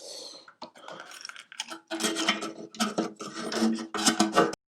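Metal-on-metal scraping and clicking from the aluminium toolbox's cap and its retaining tab being worked by hand, to ease a fit that was too tight. Sparse at first, then a busier run of scrapes and clicks from about two seconds in.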